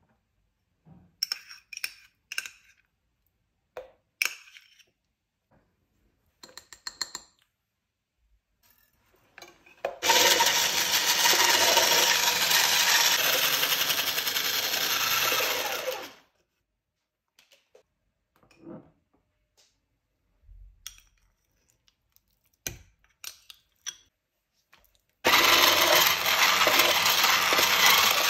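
Electric hand mixer with wire beaters running in a plastic jug, beating butter with icing sugar for about six seconds, then starting again near the end to beat in curd cheese. Before and between the runs, light clinks and knocks of bowls and utensils being handled.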